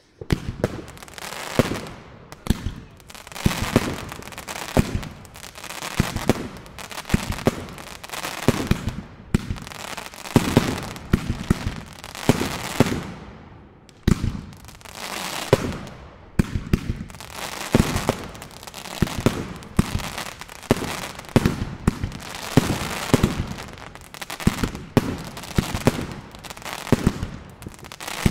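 A consumer fireworks cake (battery) set on the ground, firing shot after shot at about one a second. It starts suddenly, each bang reaching right across the range and trailing off before the next.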